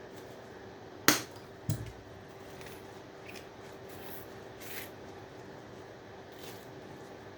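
Hand snips cutting through scrap with a sharp click about a second in, followed by a dull thump and a few lighter clicks and taps as scrap parts are handled. A faint steady hum runs underneath.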